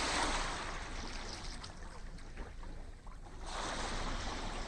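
Sea waves washing up a beach: one wave surges in at the start and dies away over about three seconds, and the next rolls in about three and a half seconds in.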